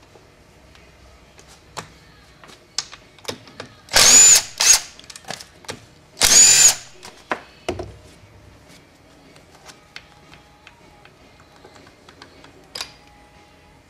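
A cordless power tool runs in two short bursts about two seconds apart, each with a high whine, most likely driving bolts out of the transmission case. Scattered clicks and clinks of tools and metal parts sound between and after the bursts.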